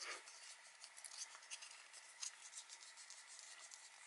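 Faint scratchy rubbing of fingertips on a small hexagonal hint card, in many quick, irregular strokes, warming the card so that its heat-revealed picture shows.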